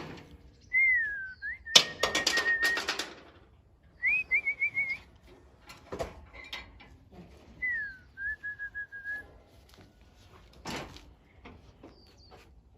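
Whistling in three short phrases, each a falling note sliding into a held, warbling note, with a few brief noisy bursts between them.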